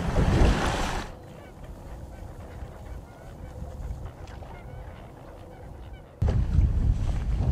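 Bass boat running at speed over choppy water with wind buffeting the microphone. It cuts off abruptly about a second in to a much quieter stretch with faint bird calls, and the boat and wind noise return suddenly near the end.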